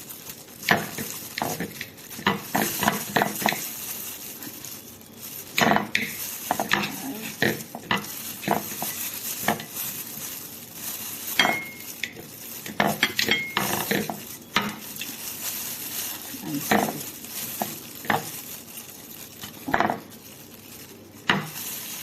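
Knife cutting a cooked lamb chop into small pieces: irregular clicks, taps and scrapes of metal cutlery against the dish, with a couple of brief squeaks of the blade about twelve and thirteen seconds in.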